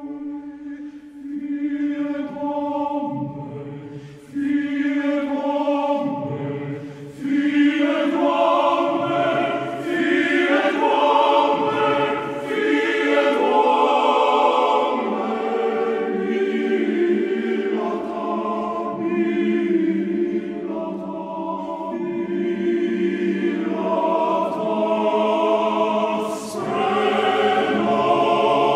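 Male Orthodox choir singing sacred music, a low note held steady under the melody at first. More voices join and the sound swells about four seconds in and again about seven seconds in.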